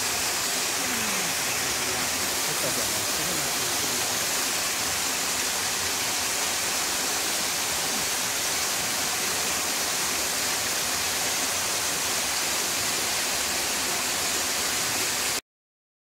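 Waterfall cascading over rock ledges: a steady rush of falling water that cuts off abruptly about fifteen seconds in.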